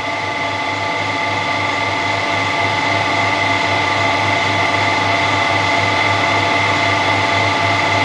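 Harrison M300 metal lathe running at 370 RPM on new drive V-belts with freshly changed headstock and gearbox oil: a steady low hum with a high whine, getting a little louder over the first few seconds. The owner hears no unusual noises from the gear side.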